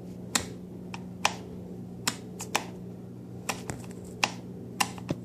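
A custom moped's 300-watt audio amplifier buzzing through its speakers: a steady low hum. About ten sharp clicks come at irregular spacing over it.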